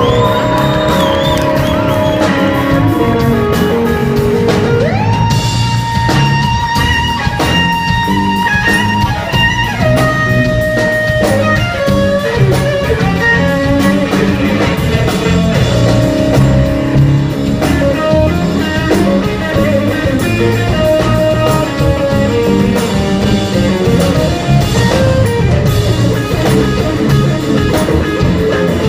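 Live band playing an instrumental passage, loud and steady, with an electric guitar out front over bass and drum kit.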